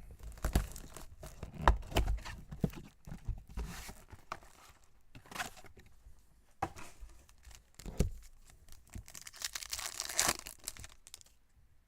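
Cardboard and wrapper packaging of a baseball trading-card box being torn open by hand, with crinkling and handling knocks. The longest stretch of tearing and crinkling comes about two-thirds of the way through.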